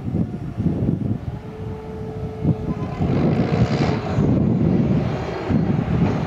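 Skagit BU-199 slackline yarder running under load, a heavy engine rumble with a steady whine that drops out partway through and returns at the end. It gets louder and fuller from about three seconds in, with wind buffeting the microphone.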